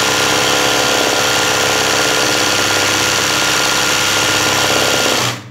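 Sewing machine running fast and steadily, zigzag stitching a satin-stitch leaf in free-motion embroidery; it stops abruptly just before the end.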